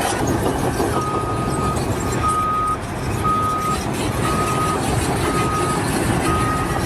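A vehicle's reversing alarm beeping about once a second, a single steady tone, starting about a second in, over the steady rumble of a heavy engine running.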